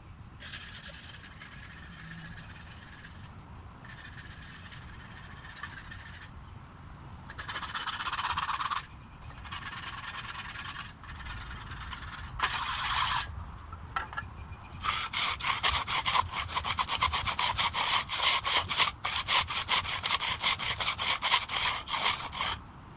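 Hand tools scraping across fresh, wet concrete during finishing: longer smooth scraping passes, then from about fifteen seconds in quick repeated strokes of a broom being dragged over the surface for a broom finish.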